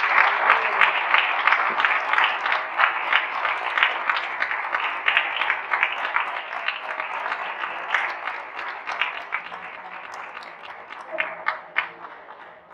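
Audience applauding, the clapping dense at first and slowly fading to a few scattered claps near the end.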